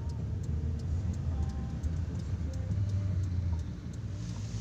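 Car cabin noise while driving: a steady low rumble from the engine and tyres on the road.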